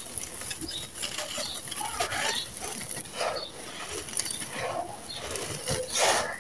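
Dry, gritty red sand-cement crumbled and crunched by hand, with grains and small lumps pouring and pattering down. It comes as a series of crunchy, rustling handfuls, the loudest just before the end.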